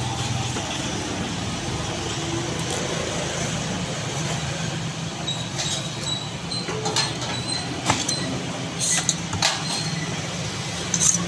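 Steady road-traffic noise with a low engine hum, and a scattering of short sharp knocks and clicks as the knife and fish pieces are handled on the wooden chopping block.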